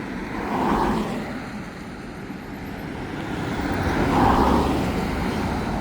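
Highway traffic noise, swelling twice as vehicles go by: once about a second in and again around four seconds in.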